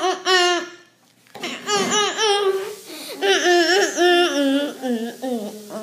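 A young child's high-pitched voice laughing and squealing without words, in several bursts, the pitch dropping near the end.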